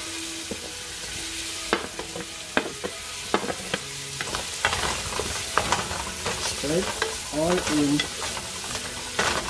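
Green onion, bell pepper and celery sizzling in oil in a pan while a wooden spatula stirs them, its edge knocking and scraping against the pan again and again over the steady sizzle.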